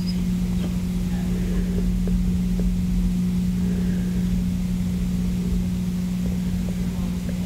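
A steady low mechanical drone: one constant hum over an even rumbling noise, with a few faint clicks.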